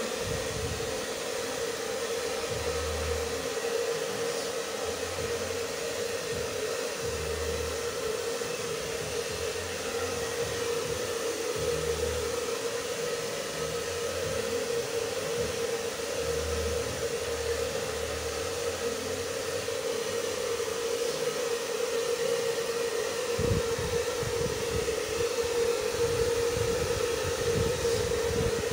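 Handheld hair dryer running steadily, blowing on a Japanese Spitz's thick coat to dry it after a wash. A low rumble comes and goes, more often near the end.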